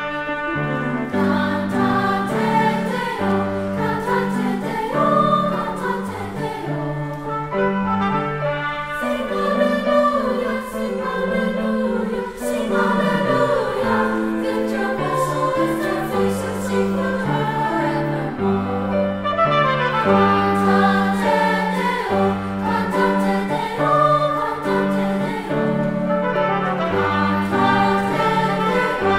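Children's choir singing in parts, accompanied by trumpet.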